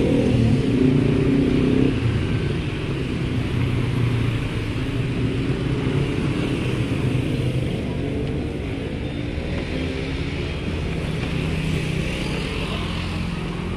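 Motorbikes riding past on a street, one after another, their small engines rising and falling in pitch as they go by.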